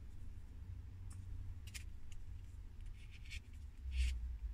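Light handling noises: a few short scrapes and taps as a grey foam-plastic wheel is picked up and turned in the hands, the loudest near the end, over a steady low hum.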